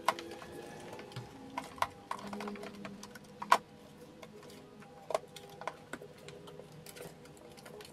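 Scattered sharp clicks and knocks from the plastic air filter housing lid and its clips being pressed and fitted into place, the loudest about three and a half seconds in.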